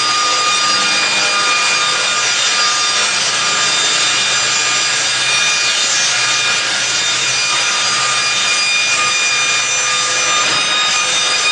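Slab-edging circular saw machine running and cutting wood: a steady, loud, continuous sawing noise with a held high whine from the spinning blades.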